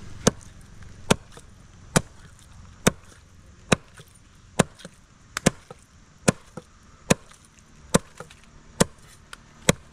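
A knife chopping through a rohu fish in a steady rhythm: about a dozen sharp chops, roughly one a second, with a few lighter taps in between.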